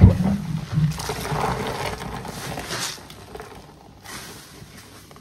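Foamy body sponges plunged into a basin of soapy water with a splash at the start, then worked and squeezed by hand: wet squelching and sloshing. It fades after about three seconds, with another squeeze and drip of soapy water near the end.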